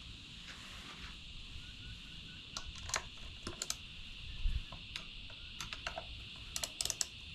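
Scattered light clicks and taps of a screwdriver and small plastic parts being handled inside a 12-volt battery box, in two clusters, one around the middle and one near the end, with a single dull thump in between.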